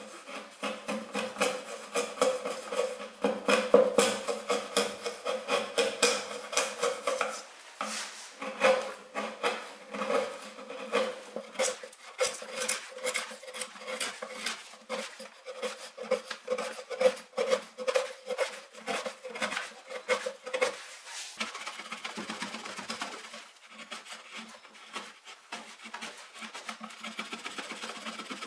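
Wood chisel scraping old glue and wood out of a seam between the boards of a wooden chair seat, in many quick, irregular strokes; the strokes grow softer after about 21 seconds.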